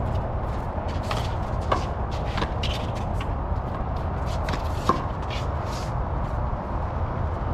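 Small-ball handball rally: several sharp smacks of the ball against gloved hands and the concrete walls, the loudest about two and five seconds in, among quick scuffs of shoes on the court. A steady low rumble runs underneath.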